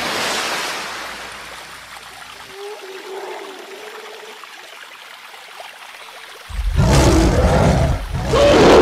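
A splash with water trickling that fades away, then about two-thirds in a dinosaur roar sound effect: two loud, deep roars in quick succession, the second the louder.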